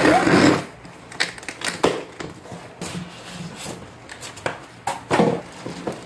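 Handling noise from a computer monitor and its box being moved and unpacked: a loud rustle at the start, then scattered clicks and knocks.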